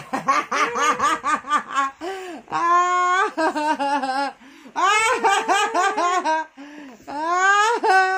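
Hearty laughter in quick, rhythmic ha-ha pulses of about four to five a second. It breaks twice into long, high squeals of laughter, one about three seconds in and one near the end.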